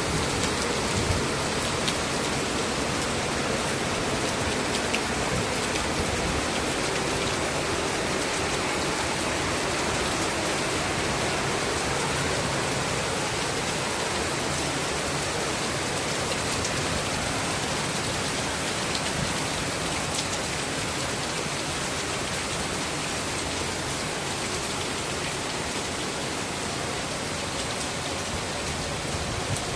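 Heavy rain in a steady downpour: an even, unbroken hiss.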